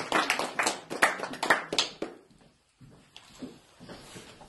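A few people clapping by hand for about two seconds.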